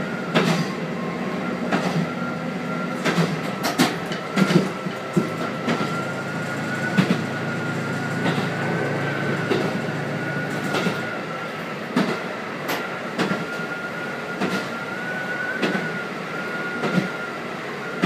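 KiHa 185 diesel railcar running along the track: its engine drones low beneath irregular sharp clicks of the wheels over rail joints and a thin steady whine. The engine's low drone drops away about two-thirds of the way through.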